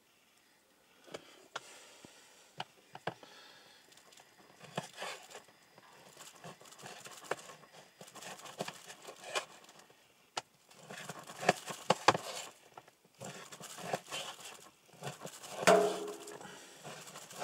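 Plastic bags and food packaging rustling and crinkling as food is unpacked and handled, with scattered sharp clicks and knocks, busier in the second half.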